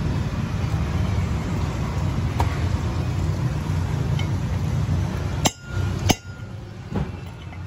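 Sharp metallic clinks from a steel drift bar knocking against the wheel bearing race inside an Isuzu Panther front hub: two ringing strikes about half a second apart late on, then a softer one. A steady low rumble runs underneath until the first strike.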